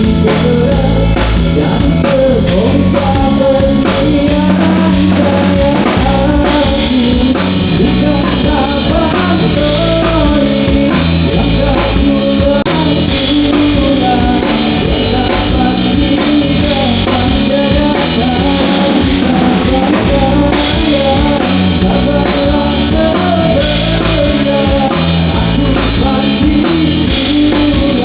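A live band playing amplified music during a sound check: drum kit, guitar and bass, with a singing voice.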